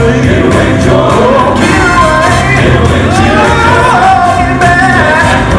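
Southern gospel vocal quartet singing live with a backing band: voices slide through a melodic run up to a held high note over bass and rhythm.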